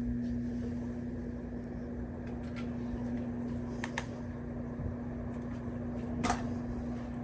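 Ceiling fan running with a steady hum, with a few faint clicks.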